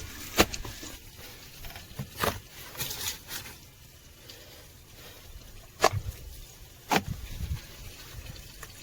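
Several separate sharp clicks and taps of hand work at the machine while getting at the fuse box. The loudest come about half a second in and again around six and seven seconds in.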